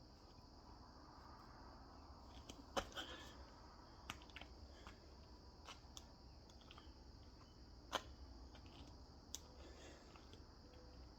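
Near silence: a steady faint high hiss with a few sharp clicks, the loudest about three seconds in and eight seconds in.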